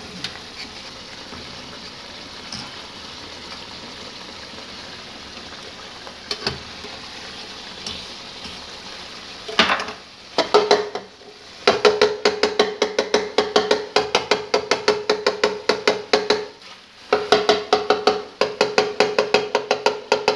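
Chicken karahi sizzling steadily in a metal karahi. About ten seconds in, a spatula starts stirring and scraping rapidly against the pan, with a short pause near the end.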